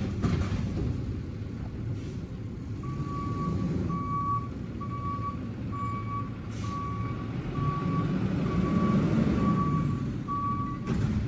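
Garbage truck's backup alarm beeping in an even series, about one beep a second, starting about three seconds in, over the steady running of the truck's engine. The engine grows louder near the end.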